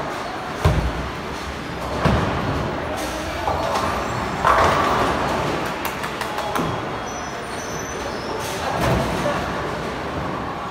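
Ten-pin bowling alley din: bowling balls rumbling down the wooden lanes and crashing into pins, with a heavy thud about a second in and a louder pin crash near the middle.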